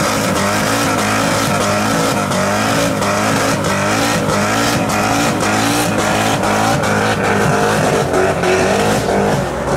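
Fox-body Mustang with a swapped-in supercharged 4.6-litre V8 from a 2003–04 SVT Cobra ('Terminator') doing a burnout: the engine is held at high revs that rise and fall about twice a second while the rear tyres spin and squeal on the pavement.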